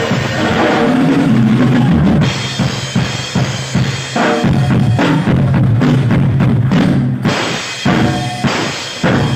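Drum kit played live in a solo, with bass drum and snare strokes coming thick and fast, then separating into single accented hits about a second before the end.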